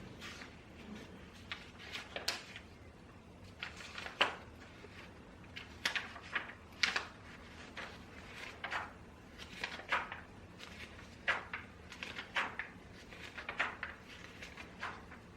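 Small desk sounds of someone studying: short, irregular scratches and light taps, some single and some in quick clusters, over a low steady room hum.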